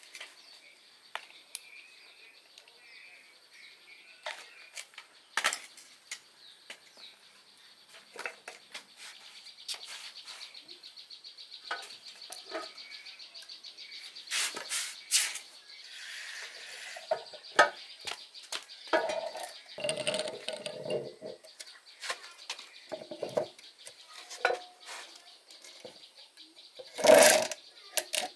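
Hand tools working on metal: scattered clinks and knocks, with a stretch of rapid, even ticking in the middle and one loud knock near the end.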